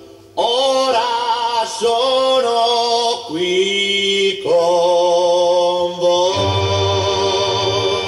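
Male singing in a recorded Italian pop song: after a brief gap, long held sung notes with backing voices begin about half a second in, and a low bass line joins about six seconds in.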